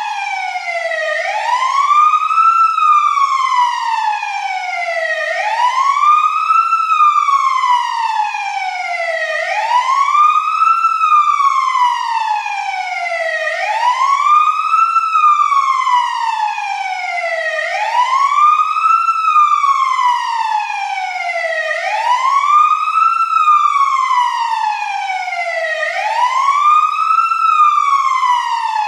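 Fire engine siren wailing: each cycle rises quickly in pitch, then falls away more slowly, repeating about every four seconds.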